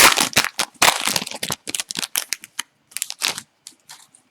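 Crinkling and crumpling of a foil trading-card pack wrapper as it is opened and handled: a dense burst of crackle for the first second and a half, then scattered, quieter crinkles.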